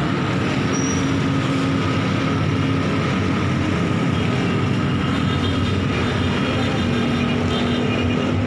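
A steady, loud mechanical drone with faint humming tones in it, unchanging throughout.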